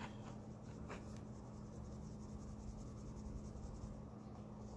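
Faint scratchy rustling of makeup items being handled at a table, with a couple of light clicks near the start, over a steady low electrical hum.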